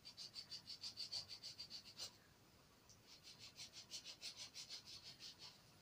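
Faint scratching of a felt-tip marker drawn in quick back-and-forth strokes over the plush fabric of a Scribble Me teddy. There are two bouts of strokes with a short pause about two seconds in.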